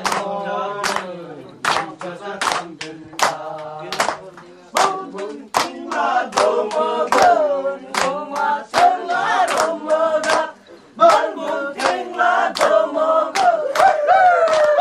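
A group of voices chanting a Lepcha ritual song, with sharp hand claps keeping time about twice a second. The singing grows fuller and higher about six seconds in.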